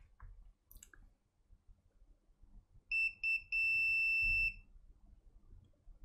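Continuity beeper of a Vici VC99 digital multimeter: two short beeps and then one longer beep of about a second, all on the same high steady tone. Each beep means the probe tips are across a closed, low-resistance path. A few faint clicks of probe tips on connector pins come before it.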